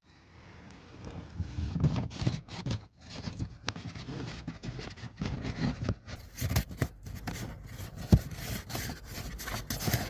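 Plastic parts of a car's cabin air filter housing being handled: irregular rubbing and scraping with many small clicks, and one sharper click about eight seconds in.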